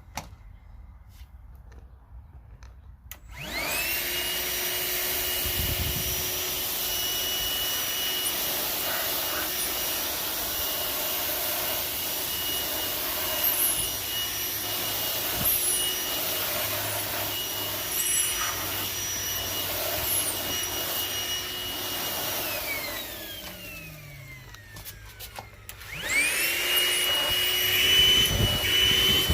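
Cordless handheld vacuum's motor spinning up with a rising whine a few seconds in and running steadily while sucking up cat litter, with scattered light ticks. Past twenty seconds it winds down with a falling pitch, then starts up again near the end.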